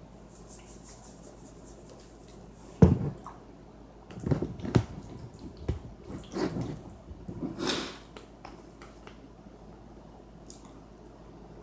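Close-up eating sounds: wet chewing and mouth noises of someone eating macaroni and cheese, in irregular clusters through the middle, with a sharp click about three seconds in.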